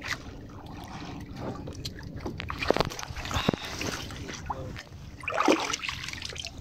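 Seawater sloshing and splashing unevenly, with a few sharper splashes.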